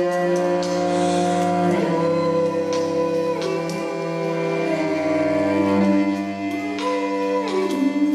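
Solo cello playing slow bowed notes, with several tones sounding together that step to new pitches every second or two, some with short slides between notes.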